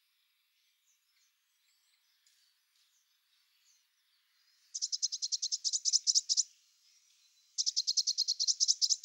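European greenfinch nestlings begging at the nest: two runs of rapid, high chirps, about ten a second, each lasting about two seconds. The first run starts about halfway in.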